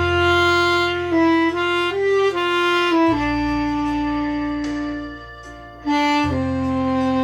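Tenor saxophone playing a slow ballad melody in G over a backing track with a sustained low bass, one note held long in the middle. It is played evenly and plainly, which the teacher calls too stiff, like reading the notes from a book.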